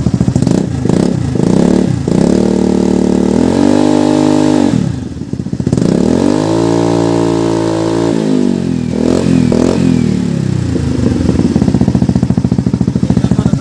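150cc scooter engine breathing through a newly fitted aftermarket muffler, being revved from idle. A few quick throttle blips are followed by two long revs that rise, hold and fall, then more short blips, before it settles back to an even idle.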